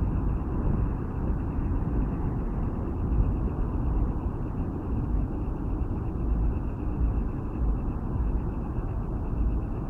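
Steady low rumble of city road traffic at a wide multi-lane street, heard on a phone microphone, without distinct events.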